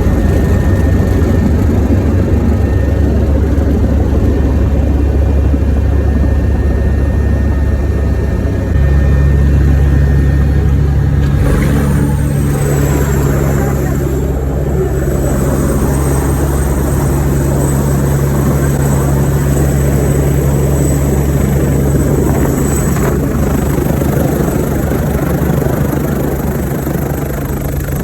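Helicopter engine and rotor running, a loud steady low drone. About eleven seconds in, a high turbine whine joins it, dips in pitch, then settles and holds steady.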